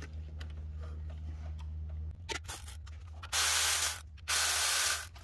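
Ratchet working on the 10 mm bolts on a Ford F-150 3.7L V6's water pump: a few light clicks, then two even bursts of ratcheting about a second apart in the second half, over a steady low hum.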